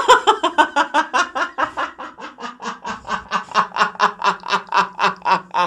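A man laughing hard: a long unbroken run of quick laughs, about five or six a second, easing off a little in the middle and growing louder again near the end.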